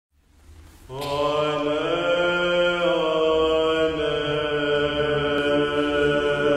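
Slow chanted vocal music over a steady held low drone note, coming in about a second in.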